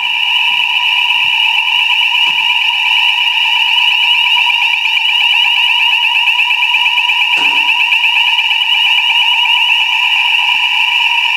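Electronic fire alarm sounding continuously: a loud, steady high-pitched tone with a fast warble.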